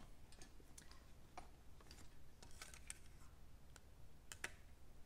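Faint handling noise of small items being put into and taken out of a handbag: a dozen or so soft clicks and ticks in no regular rhythm.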